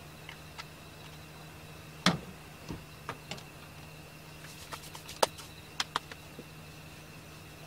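Small clicks and taps of a little glass skincare bottle and its cap being handled and set down on a table: a sharp tap about two seconds in, the loudest, then several lighter clicks around the five-to-six-second mark. A steady low hum and a faint high tone run underneath.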